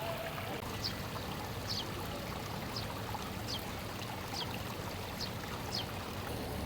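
Steady rushing noise with a short, high chirp that falls in pitch and repeats about once a second.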